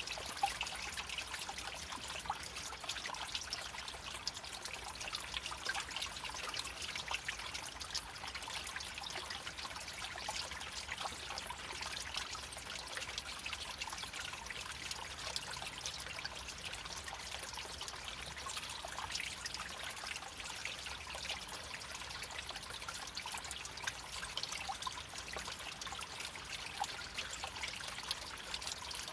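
Creek water trickling and babbling over rocks, a steady rush of splashing with no pauses.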